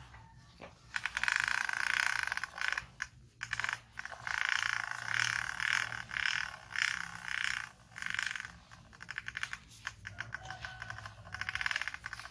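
Plastic toy truck rattling and clattering as it is pulled along, in repeated bursts of about a second with short pauses between tugs.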